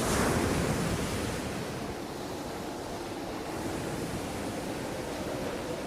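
Storm wind blowing hard and steady, a snowstorm sound effect; a gust swells in the first second, then it settles to a steady rush.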